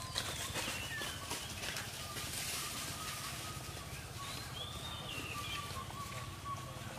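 Faint animal calls: short rising and falling chirps and a thin held whistle-like tone, over a steady low hum.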